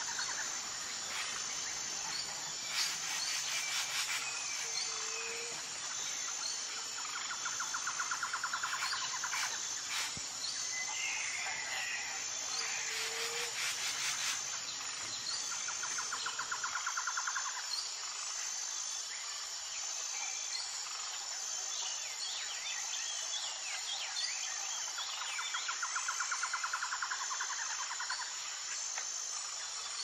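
Tropical jungle ambience: a steady high insect drone, with a pulsing insect trill that comes back every several seconds and a few short bird chirps and whistles.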